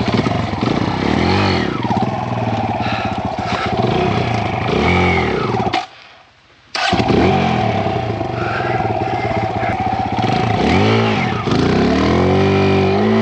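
Kawasaki KLX140RF's single-cylinder four-stroke dirt bike engine revved up and down in repeated bursts as the bike is worked through swamp mud and water. The sound drops out abruptly for about a second around six seconds in.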